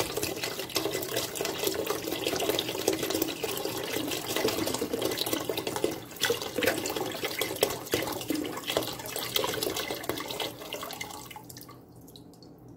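Chicken broth poured from a carton into a stainless steel stockpot of vegetables: a steady splashing stream that tapers off near the end as the carton empties.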